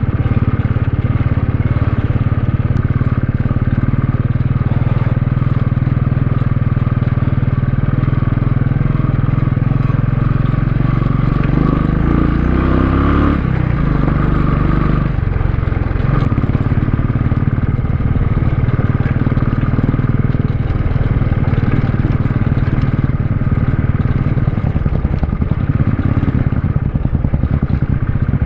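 Royal Enfield Classic 350's single-cylinder engine running steadily as the motorcycle rides a rough dirt trail, its note shifting for a few seconds about halfway through.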